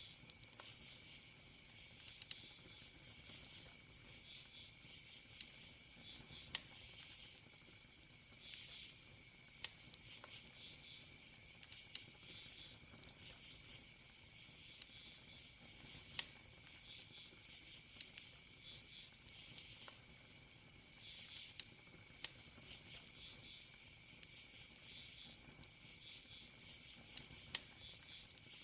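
Wood campfire crackling, with scattered sharp pops, over a steady high cricket trill and pulsed insect chirping.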